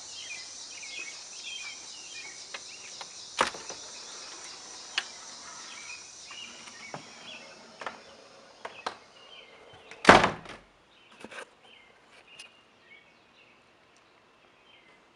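Birds chirping over a steady high drone, with scattered clicks and knocks as the front door is opened. Just after ten seconds a door shuts with a loud thud, and the outdoor sounds fall away.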